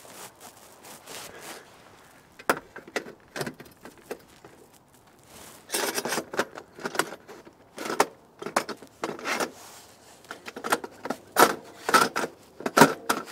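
Metal tent-mounting brackets with their screws clinking and scraping against the aluminium roof-rack rail as they are handled and slid into it, in irregular clicks and short rattles.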